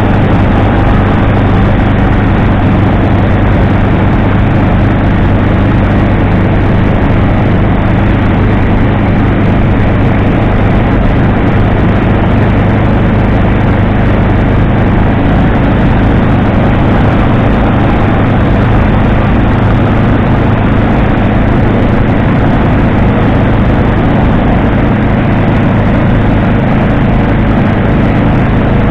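Microlight trike's engine and pusher propeller running at steady cruise power in flight, a loud, even drone that holds one pitch throughout.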